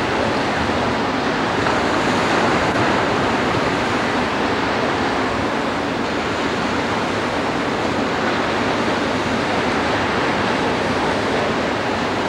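Steady wash of small surf on a sandy beach, mixed with wind buffeting the camcorder microphone.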